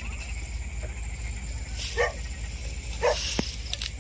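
Two short, loud animal calls about a second apart, over a steady night chorus of insects.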